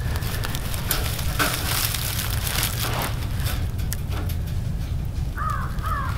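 Light clicks and rustling of a wire cage live trap being handled as its trigger plate is set, over a steady low rumble. Near the end a bird calls three times.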